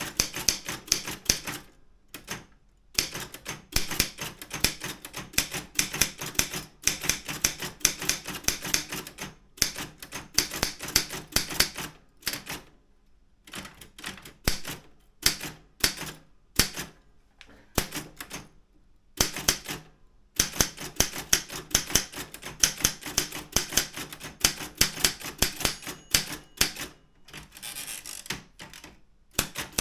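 Daro Optima M16 manual typewriter being typed on: quick runs of key strikes, several a second, broken by short pauses of a second or so.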